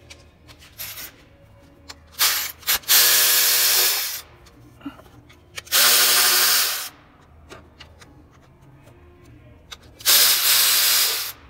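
A power tool driving a 10 mm socket runs in three bursts of a second or two each, backing out the timing-belt cover bolts. Light metallic clicks come between the bursts.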